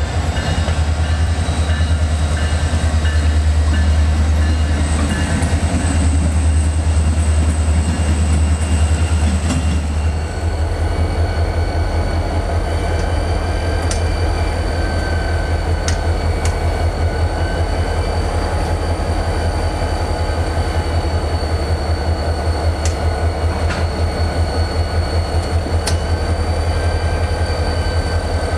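Diesel-electric locomotives, including an EMD SD40-2, accelerating with engines working hard. About ten seconds in, the sound changes to the locomotives rolling slowly past with engines running and a rhythmic clickety-clack of wheels over the rail joints, along with a steady high whine and a few sharp clicks.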